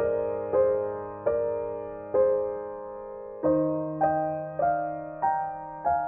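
Slow, gentle piano background music: single notes struck about once or twice a second, each ringing and fading, with the melody stepping upward in the second half.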